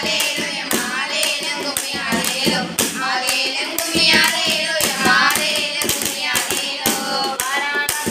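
Girls' voices singing a Tamil kummi folk song together, over a steady beat of hand claps at about two a second.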